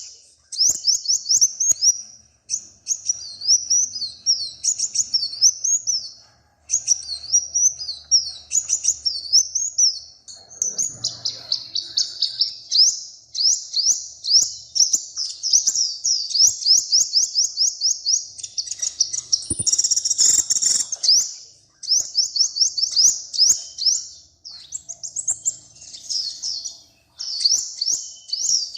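Small songbird singing: long runs of rapid, high chirping notes, several a second, in phrases of a few seconds separated by short pauses.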